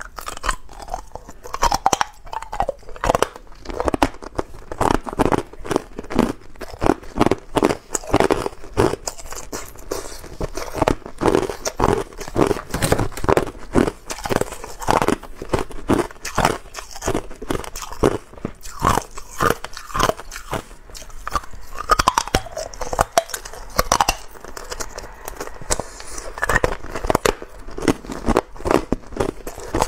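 Clear, hard ice cubes being bitten and chewed, picked up close by a clip-on microphone: a rapid, irregular run of sharp crunches and cracks as the ice breaks between the teeth.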